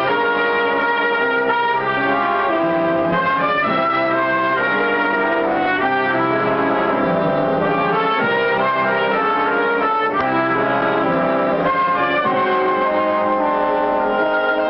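Orchestral film music led by brass, with held chords and moving lines that carry on without a break.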